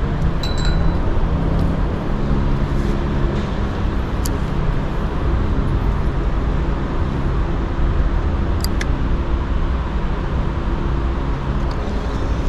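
Steady low engine rumble, like motor traffic or a passing motor vessel, with a couple of short faint clicks.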